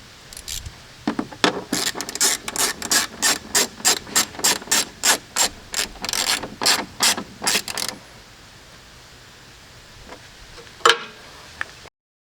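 Ratchet wrench clicking as it turns a 10mm fastener, a steady run of sharp clicks about three a second for several seconds. One louder single click follows near the end.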